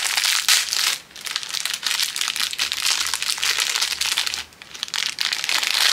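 Packaging crinkling and rustling as a small accessory is handled and unwrapped, with two brief lulls: about a second in and near four and a half seconds in.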